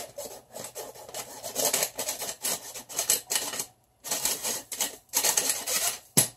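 Hand-operated metal flour sifter being worked over a bowl, its blades scraping flour through the mesh in rhythmic rasping clicks, about three a second, with a brief pause after about four seconds.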